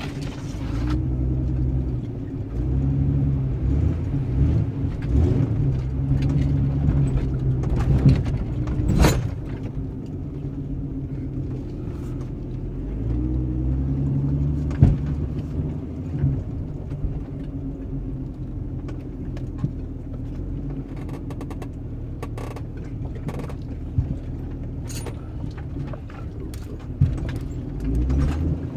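Old Jeep's engine running as it drives slowly over a rough wooded trail, heard from inside the cab. The engine note rises and falls with the throttle, with sharp knocks and clicks from the vehicle jolting over bumps, the loudest about nine and fifteen seconds in.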